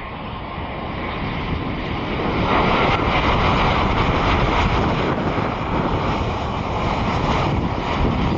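Jet engines of a low-flying Boeing 787 airliner on final approach with its landing gear down, growing louder over the first two to three seconds as it comes closer, then a steady loud rush of jet noise as it passes.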